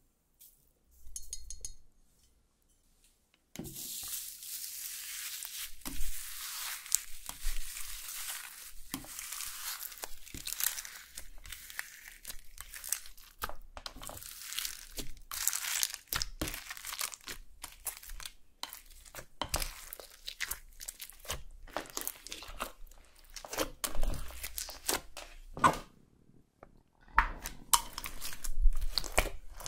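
Clear slime being handled and mixed with gold glitter, gold beads and gold-leaf flakes in a glass baking dish: dense crinkling and crackling with many small clicks and squelches. It starts a few seconds in and breaks off briefly near the end before going on.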